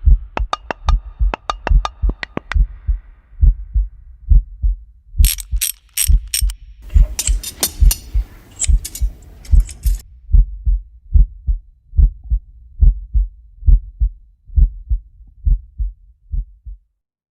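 A heartbeat sound effect, an even run of low thumps that stops about a second before the end. Over it, a quick run of sharp mechanical clicks in the first couple of seconds, then harsh high-pitched tool noise in bursts from about five to ten seconds in.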